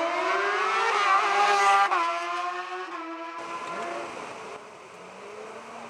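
Race car engine accelerating hard up the road, its note climbing as it comes close and loudest a little under two seconds in, then dropping suddenly to a lower steady note. About three and a half seconds in the sound cuts off abruptly, leaving a fainter engine further off.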